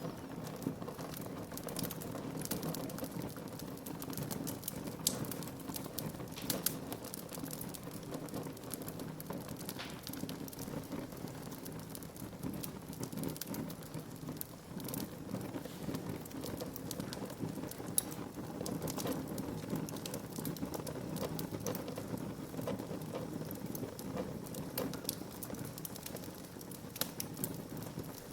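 Wood fire burning in a fireplace: a steady low rush of flames with frequent sharp crackles and pops, a few louder pops standing out.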